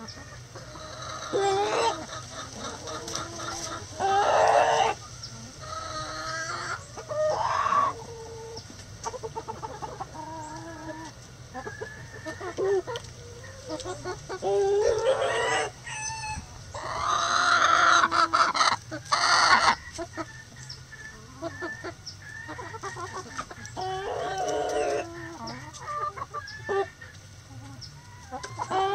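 Chickens in a mixed flock of hens and roosters clucking and squawking in short, separate calls. About two-thirds of the way through, a rooster crows in one long call, the loudest sound here.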